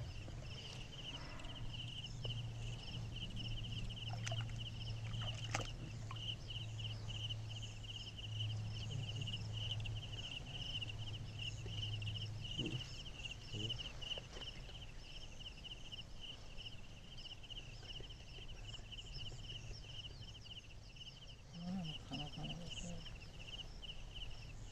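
Insects chirring steadily, a high, fast-pulsing drone that goes on throughout, over a low hum that fades out about halfway through.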